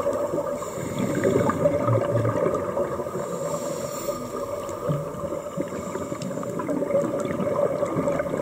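Underwater sound of a scuba dive: a dense, steady crackling and bubbling of water, with a diver's exhaled regulator bubbles.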